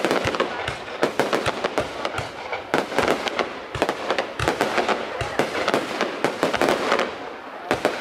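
Fireworks going off in quick, overlapping cracks and bangs over a constant crackle, thinning out briefly near the end.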